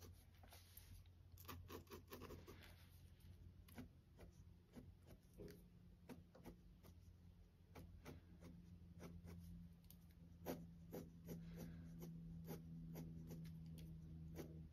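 Faint scratching of a mechanical pencil's very fine, hard lead on sketchbook paper: many short, irregular pencil strokes.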